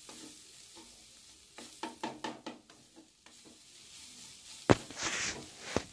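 Chopped onion, garlic and ginger sizzling in mustard oil in a nonstick pan while a wooden spatula stirs and scrapes them. A sharp knock about three-quarters of the way in is followed by a brief louder sizzle, and a second knock comes near the end.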